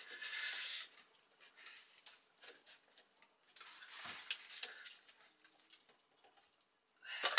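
Faint rubbing and scattered small clicks of a cloth wiping water around a plastic sensor housing in a through-hull fitting. A short rustling hiss comes at the start and a sharper knock just before the end.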